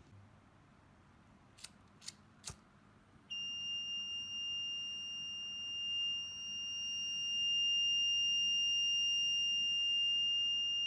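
Three sharp clicks, then the small buzzer of a homemade fire-alarm circuit sounds one steady high-pitched tone for about seven seconds before cutting off suddenly: the alarm set off by a lighter flame heating its thermistor.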